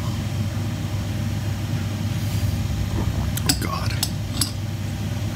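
Steady low hum inside a train carriage, with a few light clinks of a porcelain espresso cup about three and a half to four and a half seconds in.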